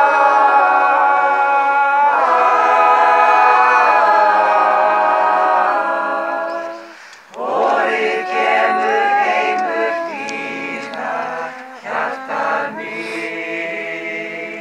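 A choir of men's and women's voices singing in harmony with long held chords. About seven seconds in, the sound drops away for a moment, then the singing picks up again, less even than before.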